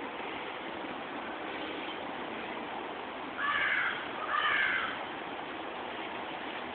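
A crow cawing twice, two harsh calls about half a second each, roughly three and a half seconds in, over a steady outdoor hiss.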